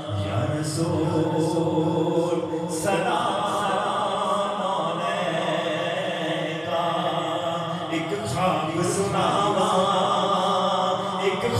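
A man singing a naat, unaccompanied Islamic devotional chant, into a handheld microphone in long drawn-out phrases, with new phrases beginning about three seconds and eight seconds in.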